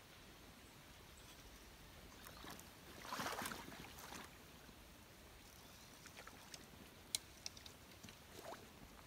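Faint water splashing at the river's edge, the loudest a short splash about three seconds in and a weaker one a second later, with a few sharp clicks near the end over a low background hiss.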